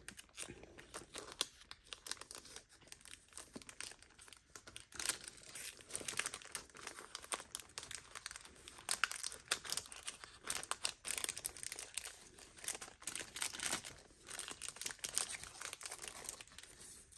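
Paper and its packaging crinkling and rustling as papercraft borders with gold-foil corners are slid carefully back into their pack: irregular soft crackles throughout.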